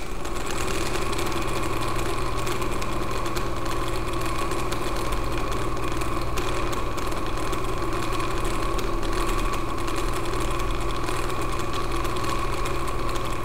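Homemade three-piston Stirling engine running steadily on a hot plate, driving a magnet up and down inside a wire coil: an even mechanical hum with a fast rattle. It is up to speed and self-running, generating about 3 volts AC.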